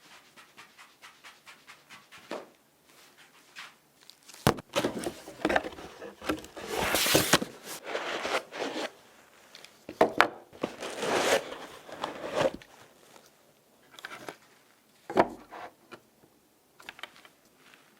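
Hands working on PC parts during an assembly: a quick, even run of light ticks, then a stretch of rubbing and scraping, loudest in the middle, and a few sharp clicks near the end.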